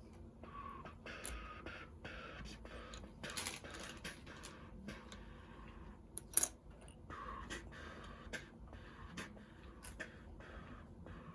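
Small plastic Lego pieces clicking, rattling and scraping as they are handled and fitted together, with one sharp, louder click about six seconds in.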